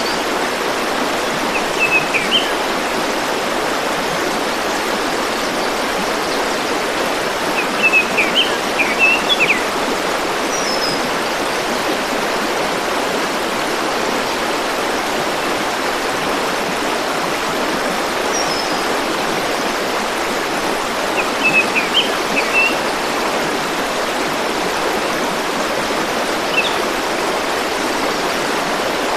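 River water flowing in a steady rush, with short bird chirps coming in small clusters every few seconds.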